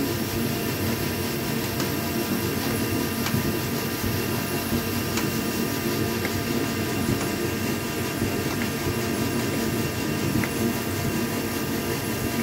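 Steady mechanical hum of a machine running, with a few faint scattered ticks as a wrench turns a bolt by hand to draw up and flare a rivnut in sheet metal.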